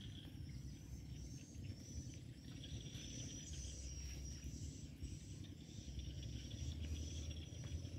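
Outdoor rural ambience: a small creature's high chirping call repeated about once a second, over a low rumble.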